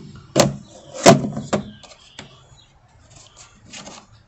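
A fridge's cutting board being clipped back into its slot: a few sharp clicks and knocks, the loudest about a second in, then quiet.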